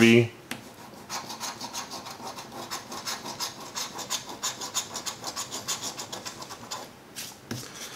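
A coin scraping the coating off a scratch-off lottery ticket: quick, rhythmic back-and-forth strokes with a brief pause near the end.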